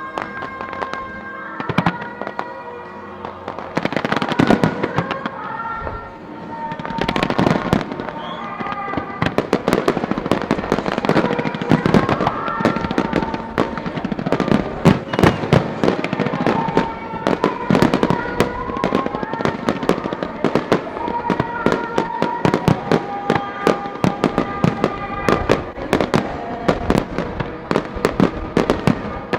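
Fireworks display: a fast run of shell bursts, bangs and crackles that grows denser from about nine seconds in, with music playing underneath.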